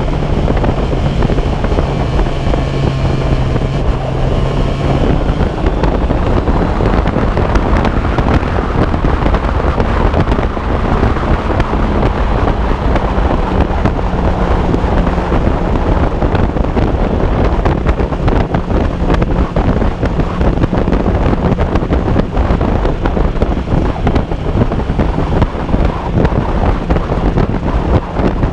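Suzuki Bandit motorcycle's inline-four engine running at steady road speed, its note shifting in pitch a few times, under heavy wind noise on the microphone.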